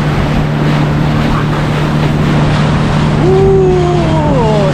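Loud, steady rushing noise with a low, even hum under it. About three seconds in, a person's voice calls out in a long tone that slides down in pitch.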